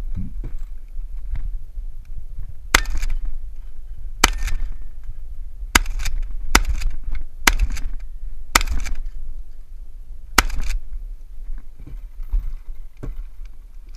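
Shotgun firing birdshot: seven sharp shots, the first three about a second and a half apart, then faster at under a second apart, and a last shot about two seconds later, each with a short echo.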